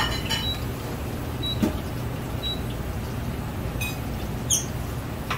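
Stainless steel tongs clinking a few times against a large aluminium stockpot while stirring spaghetti in boiling water, over a steady low rumble.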